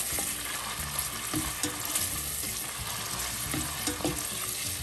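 Carrot sticks sizzling steadily as they fry in hot oil in a stainless steel pressure cooker, with a few light taps as they are stirred.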